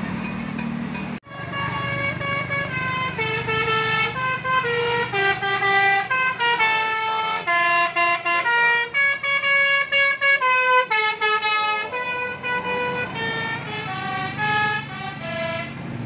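Bus "telolet basuri" musical horn playing a long melody of held notes stepping up and down, starting about a second in, over the low running of the bus engine and traffic.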